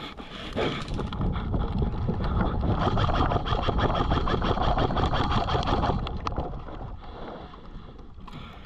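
Rumbling wind and movement noise buffeting the microphone during a rush forward, with a fast rattle of clicks; loudest in the middle, fading over the last few seconds.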